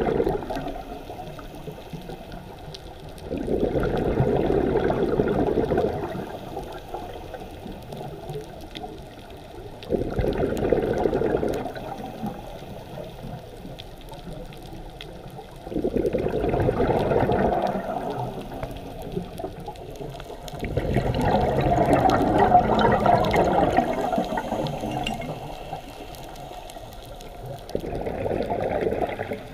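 Scuba diver's exhaled breath bubbling out of the regulator in rushing bursts of two to three seconds, five of them about every six seconds, with quieter stretches between breaths.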